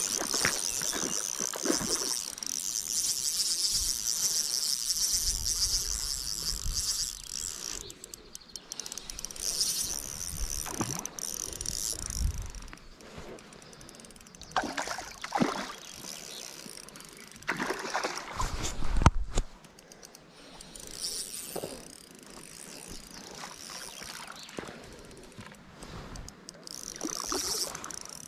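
Outdoor sound while a hooked char is played and landed on ultralight spinning tackle: a steady high hiss for the first several seconds, then scattered knocks, rustles and low handling thumps.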